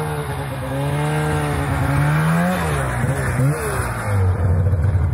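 Two-stroke snowmobile engine running under throttle. Its pitch climbs for about two and a half seconds, drops away, and settles to a lower, steady drone near the end.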